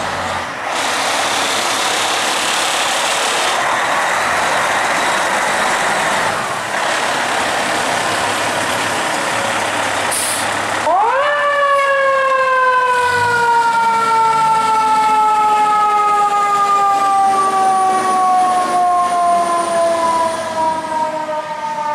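Fire truck siren: a loud steady rushing noise for about the first ten seconds with a brief hiss near its end, then the siren winds up sharply about eleven seconds in and slowly falls in pitch from then on.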